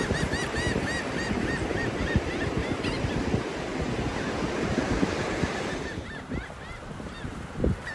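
Surf and wind washing steadily under a flock of birds giving quick, repeated high calls in the first few seconds. About six seconds in the rush of surf drops away, leaving a few scattered calls.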